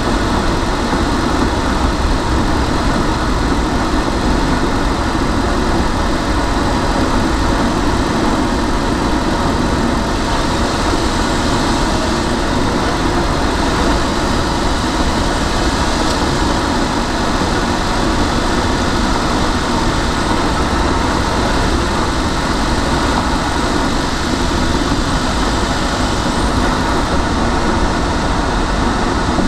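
Steady road and engine noise of a car driving through a road tunnel, heard from inside the car.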